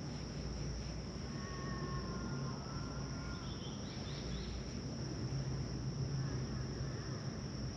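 Steady high-pitched insect drone, crickets or cicadas, holding one even tone over a low background hum, with a few faint thin whistles about two seconds in.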